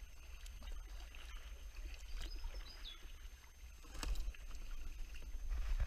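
Kayak paddle strokes, the blade dipping and splashing in calm creek water, with a few sharp knocks, the loudest about four seconds in, over a steady low rumble.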